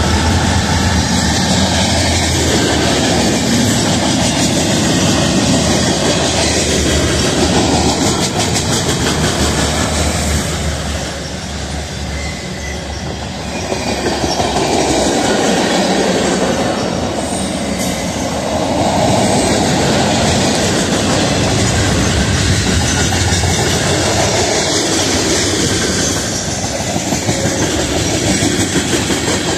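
Union Pacific mixed freight train rolling past close by: a steady loud rumble with the rhythmic clatter of wheels over rail joints, easing briefly about eleven seconds in.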